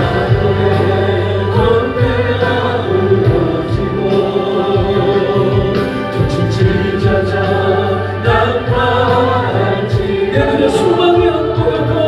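Background music: a choir singing a Christian song over instrumental accompaniment with steady held bass notes.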